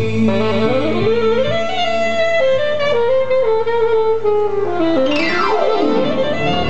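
Latin band music led by an electronic keyboard playing a stepping melody over a bass line. About five seconds in, the keyboard makes a fast sweep down in pitch and starts back up.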